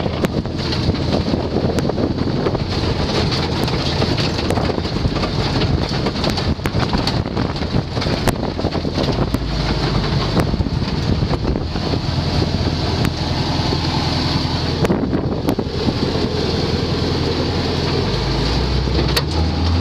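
Off-road 4x4 driving over a rough, rocky dirt track: the engine runs steadily under load, the body gives frequent sharp knocks and rattles over the bumps, and wind buffets the microphone.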